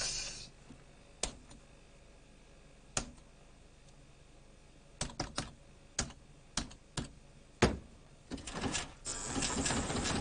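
Buttons on a video poker machine pressed hard, a string of sharp single clicks with a quick run of three about halfway through. Near the end a denser rustling noise builds up.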